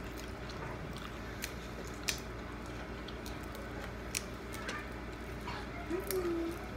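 Boiled shrimp being peeled by hand and eaten: scattered small clicks and cracks of shells breaking, with soft wet squishing and chewing sounds.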